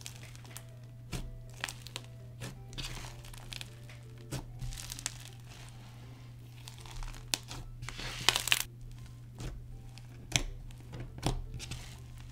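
Crispy slime mixed with plastic fake snow crackling and popping as hands press, stretch and squeeze it: a scattered run of crinkly pops, with a dense crackle a little past the middle.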